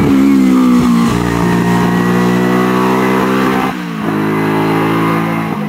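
Hill-climb racing car's engine running hard at high revs, its note holding steady with a slight sag in pitch. About two-thirds through the note drops away briefly and comes back steady.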